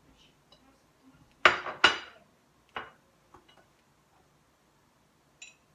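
Small kitchen sieve knocked against a bowl: two sharp clinks close together about a second and a half in, then a few fainter taps.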